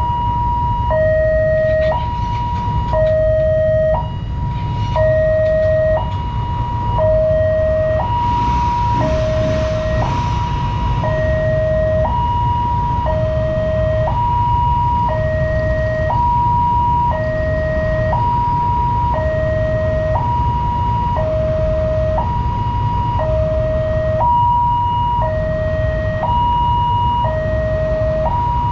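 Railway level-crossing warning alarm sounding from a loudspeaker horn: an electronic two-tone signal switching steadily between a high and a low note, each held about half a second, the sign that a train is approaching and the barriers are down. A low rumble of waiting road traffic runs underneath.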